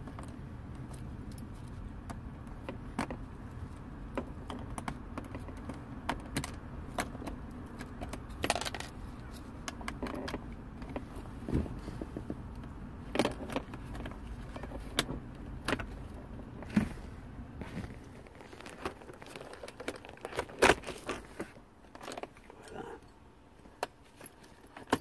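A key ring jangling, with scattered sharp clicks of the key blade and the shifter's plastic and metal, as a key is pushed into the shift-lock release slot of a 2015 Toyota Corolla's gear shifter to free it without power. A low steady hum underneath fades out about three-quarters of the way through.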